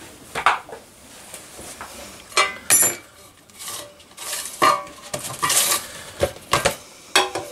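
Scattered metal clinks and clanks, a few of them briefly ringing, as a gallon can of carburetor cleaner and its metal lid are handled while an engine piston is set in to soak off its carbon.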